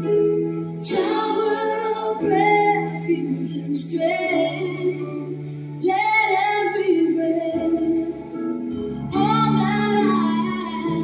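A song: high voices singing over steady sustained instrumental chords, the sung lines coming in phrases of about two seconds.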